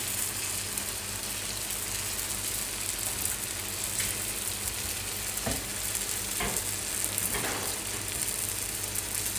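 Barbecue-sauced lobster halves sizzling steadily in their shells on a stovetop griddle, cooking on the griddle's leftover heat after the burner has been turned off.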